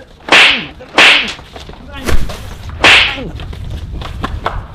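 Whip-like swishing hit sound effects, four in about three seconds, laid over punches and slaps in a scuffle.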